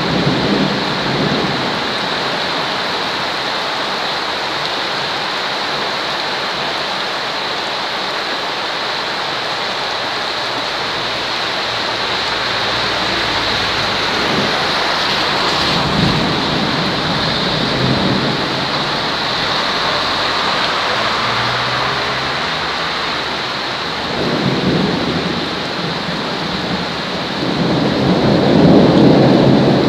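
Steady heavy rain with rumbles of thunder swelling up several times, loudest near the end.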